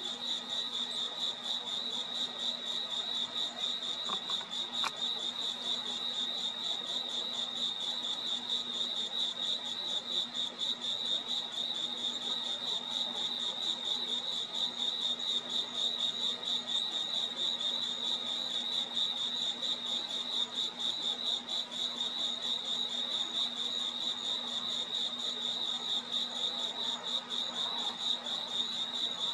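Crickets chirping in a steady, unbroken high-pitched night chorus, with a faint low hum underneath.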